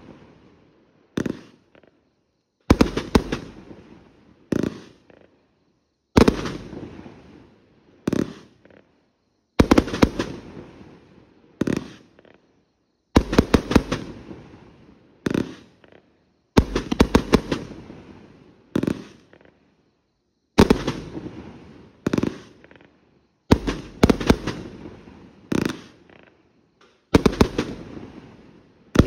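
Consumer 1.4G multi-shot fireworks cakes firing aerial shots: repeated groups of sharp bangs, a new group every couple of seconds, each fading off before the next, with short quiet gaps between.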